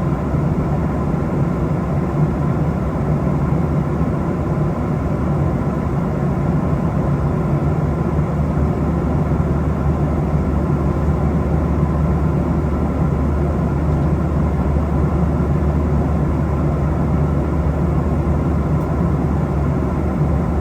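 Steady, low drone of a jet airliner's cabin in flight: engine and airflow noise that holds even, with no sudden sounds.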